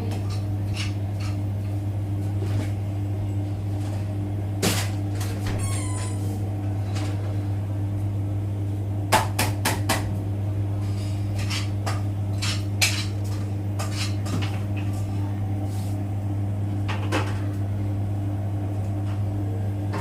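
Siemens iQ700 front-loading washing machine running with a steady low hum, fitted with a replacement drum after a noisy 1200 rpm spin. Scattered metallic clicks and clatters come over it, the sharpest a little before halfway and again about two-thirds through.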